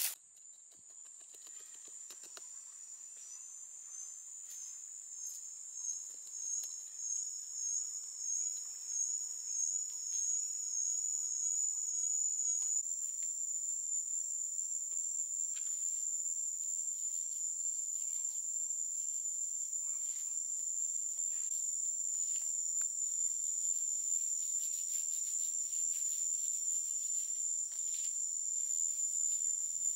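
Insects droning: one steady high-pitched buzz with a slow waver, growing louder over the first dozen seconds and then holding. A few faint taps are scattered through it.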